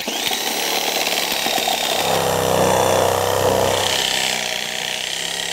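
Reciprocating saw cutting through a wooden deck post, starting abruptly and running steadily, with a deeper hum from about two to four seconds in.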